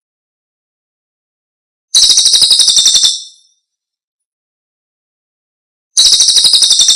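Celilin bird call: a rapid trill of about ten high notes a second lasting just over a second. It comes twice, about four seconds apart, as a looped lure recording.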